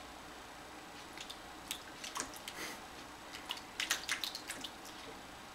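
A kitten splashing and playing in the water dish of a gravity-fed pet water dispenser: scattered small splashes and drips, starting about a second in and busiest around four seconds in.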